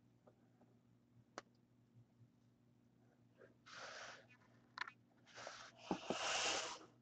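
Faint handling of a stack of trading cards: cards sliding and rubbing against each other in a few soft swishes, with light clicks as they are set down, the longest swish near the end.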